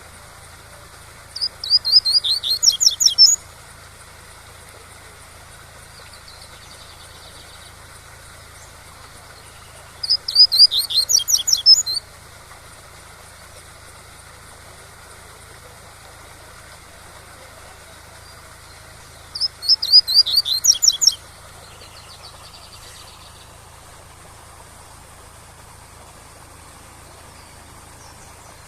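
Double-collared seedeater (coleiro) singing its 'tui-tui' song: three phrases about nine seconds apart, each about two seconds of rapid, high notes. A steady rush of waterfall water runs underneath.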